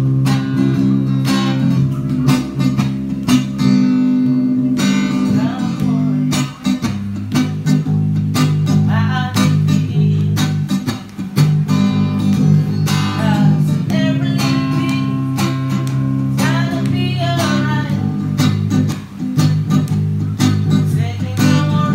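A Lakewood acoustic guitar strummed and an Ibanez SDGR electric bass playing a bass line together, a live acoustic-and-bass jam.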